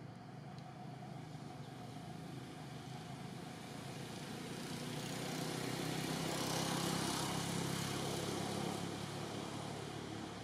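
A motor vehicle passing at a distance: its engine and road noise grow louder, peak about two-thirds of the way through, then fade.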